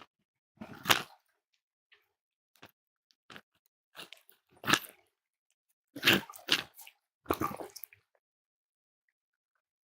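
Cat eating, biting and chewing its food in short, irregular bouts of crunching that stop about eight seconds in.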